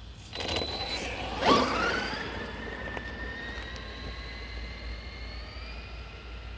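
Brushless electric motor of a Maverick Quantum MT Flux RC monster truck whining at speed as it passes close by. It is loudest about a second and a half in, with the pitch dropping as it goes past, then it carries on as a quieter steady whine while the truck runs away down the road on a 2S battery.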